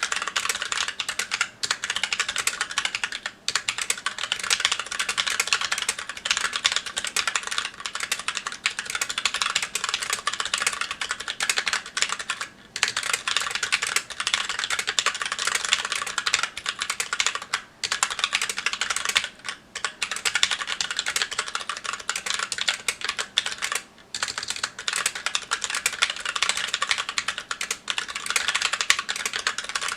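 Continuous fast typing on a Magicforce 68 mechanical keyboard with stock Gateron Brown tactile switches and GMK Olive keycaps: a dense clatter of keystrokes, broken by a few brief pauses.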